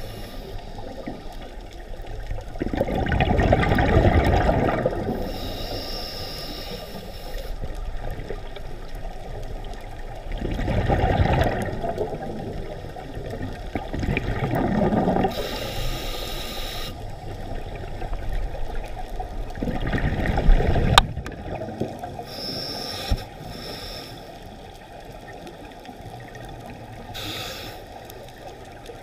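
Scuba diver breathing through a regulator underwater: about four breaths, each a loud rush of exhaled bubbles followed by the thin hiss of the next inhale. A couple of sharp clicks come about two-thirds of the way through.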